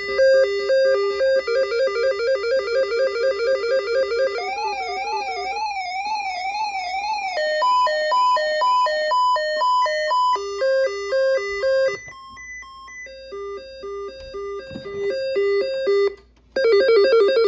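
Weather radio alert alarms sounding together: a fast alternating two-note electronic beep, joined about four seconds in by a warbling tone, then clipped repeating beeps. The sound drops lower about twelve seconds in, cuts out for a moment near the end, and the loud two-note beeping starts again.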